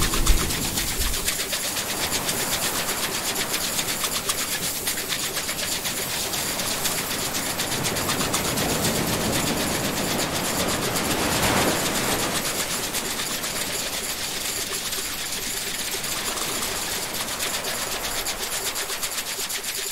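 Ocean surf washing over rocks, one wave swelling and breaking about eleven seconds in, with a fast, steady mechanical ticking running under it.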